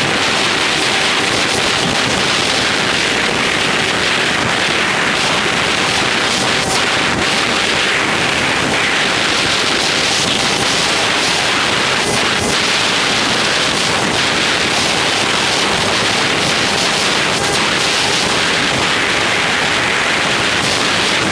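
Steady wind rush buffeting a helmet-mounted camera on a motorcycle at highway speed, with a faint steady engine hum underneath and occasional brief clicks.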